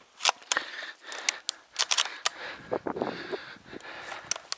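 Footsteps through grass and peaty ground with clothing and gear rustling, heard as many irregular sharp crackles and clicks.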